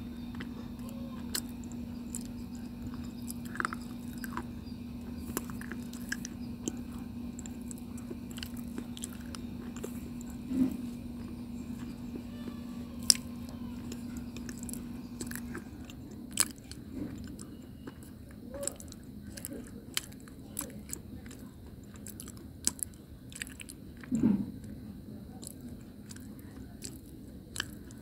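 Close-miked chewing of a mouthful of chalky white slate stone, with scattered sharp crunches and a pasty, wet chew between them. A steady low hum runs underneath and stops about halfway through.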